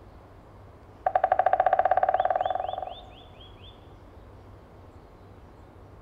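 A white-backed woodpecker drumming: a rapid roll of bill strikes on resonant wood, starting about a second in, lasting about two seconds, speeding up slightly and fading away at the end. This is its advertising drum to attract a female. Near the end of the roll, about seven short high chirps from a bird join in.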